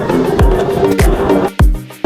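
Background music with a steady kick-drum beat and sustained synth notes.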